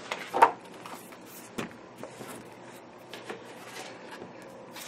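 Quiet handling noises: soft rustles and a few light clicks, the loudest a short rustle just under half a second in and a sharp click about a second and a half in.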